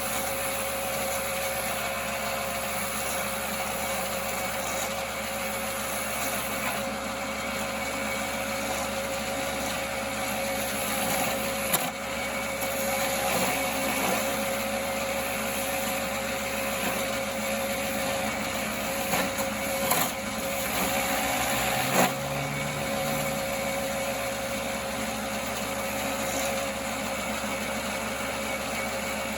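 1939 Pow-R-Kraft wood lathe running steadily with a constant hum while turning wood, with a few sharp knocks near the middle and twice more later on.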